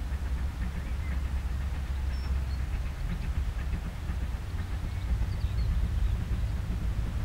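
GWR Modified Hall 4-6-0 steam locomotive working a passenger train towards the listener, heard from a distance as a steady low rumble of exhaust and running gear.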